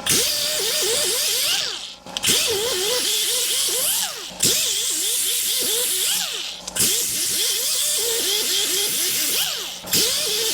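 Handheld power tool run in repeated bursts about two seconds long, with brief pauses between them. It makes a hissing sound with a wavering whine that rises and falls as the tool loads up while scrubbing rust off the brake parts.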